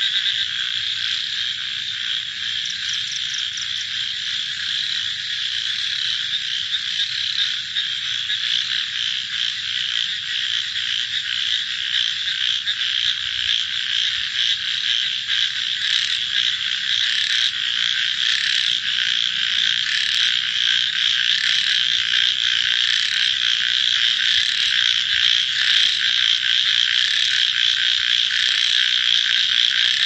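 Dense chorus of many frogs calling together, a continuous massed din. From about halfway through, separate sharper calls stand out over it more and more often, and the chorus grows slightly louder.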